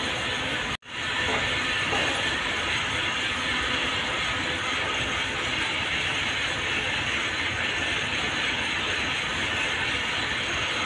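Rope-factory machinery running steadily: a dense, even mechanical clatter of gears and moving parts. It drops out completely for a moment just under a second in, then resumes at the same level.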